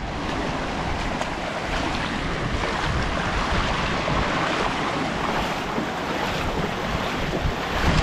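Shallow, clear river running over pebbles and stones: a steady rushing of water.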